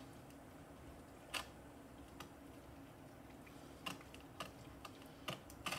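Cold food starting to heat in a pan on the stove: faint scattered ticks and crackles about a second apart, then a steady sizzle coming up near the end.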